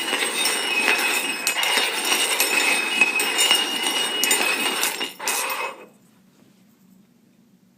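Hard dishes or containers clinking and scraping together on a hard surface in a dense run of small knocks, stopping about six seconds in.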